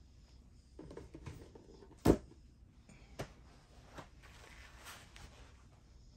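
Handling noises: one sharp knock about two seconds in, followed by a few lighter clicks and some rustling.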